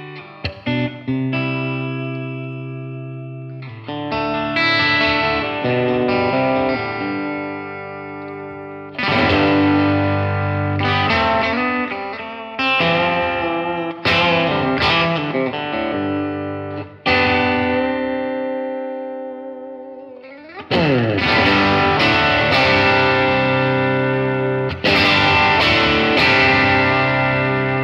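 Telecaster-style electric guitar played through a Blackstar HT-5R MkII 5-watt valve amp on its Clean Voice 2 setting. Chords are struck and left to ring in phrases with short breaks, with a quick rising slide into a chord about two-thirds of the way through.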